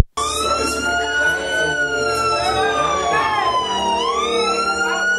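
Siren-style wail in a hip-hop instrumental: one high pitch that slowly rises and falls, dipping lowest about four seconds in and then climbing again.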